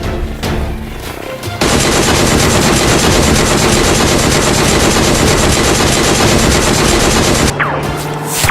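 Rapid automatic gunfire, a dense unbroken stream of shots that starts about a second and a half in and stops near the end, over background music.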